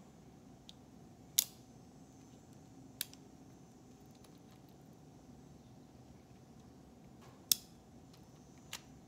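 Hawes J.P. Sauer Western Marshall .22 LR single-action revolver being loaded round by round: four sharp metallic clicks spaced a second or more apart. The loudest come about a second and a half in and again near the end.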